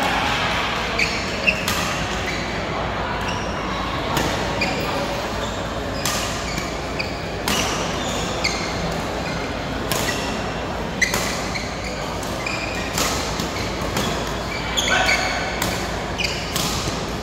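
Badminton play in a large, echoing hall: sharp smacks of rackets hitting the shuttlecock at irregular intervals, with short squeaks of court shoes on the floor.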